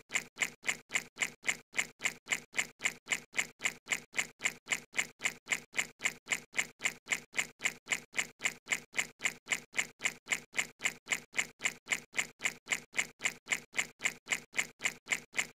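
A short electronic sound effect repeated in a steady, machine-even loop, about four to five times a second. It is dubbed in as the sound of a praying mantis drinking water droplets.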